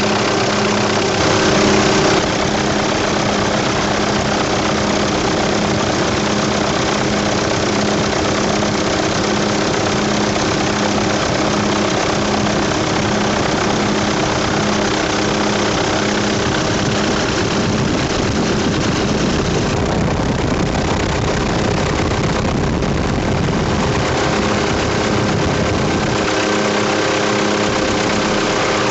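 Helicopter engine and rotor running steadily in flight, heard from on board, with a brief louder moment about a second in.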